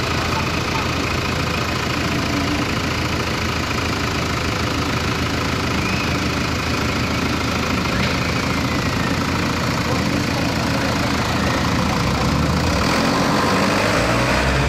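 Road traffic with car engines idling at a crossing, a steady hum. Near the end a vehicle engine close by gets louder.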